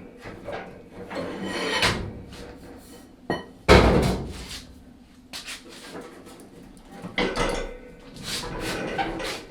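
Irregular knocks, clunks and clatter of metal parts and tools being handled at a workbench, with one loud bang about four seconds in.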